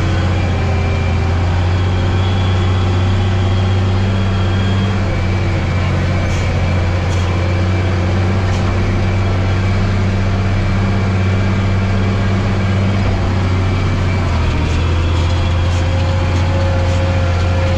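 Tractor diesel engine running steadily under load while pulling a harrow, heard from inside the cab, a continuous low hum whose tone shifts slightly about fourteen seconds in.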